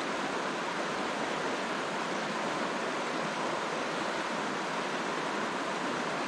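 Steady rush of a shallow, rocky river running over riffles and around boulders.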